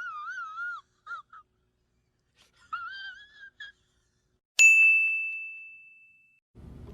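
Sound-effect clips played one after another. First come three short bits of a warbling, wavering whistle-like tone; then, a little over four and a half seconds in, a single bright ding rings out and fades over nearly two seconds.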